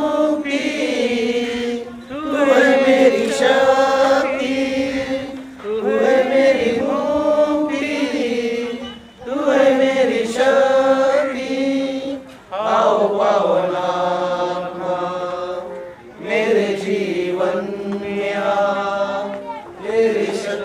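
Voices chanting a melody in phrases of about three to four seconds, with short breaks between them.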